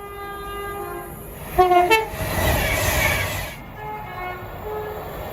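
Train horn sounding a held chord of several tones, then a loud short blast about a second and a half in. A couple of seconds of rushing train noise follow, then shorter horn notes.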